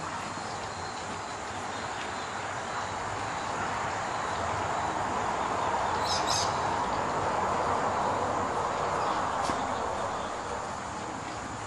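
A steady high insect drone with a short burst of bird chirps about six seconds in, over a broad rushing noise that swells through the middle and fades again.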